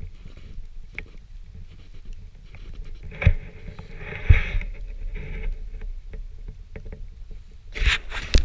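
Footsteps crunching through deep snow while the camera is carried, with a low rumble of handling on the microphone. Two sharp thumps about three and four seconds in, and a brief loud scuff near the end.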